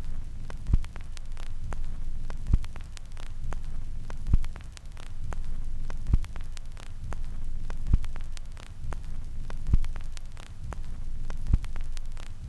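Intro music track: a low humming drone with a deep bass thump about every two seconds and scattered crackling clicks over it.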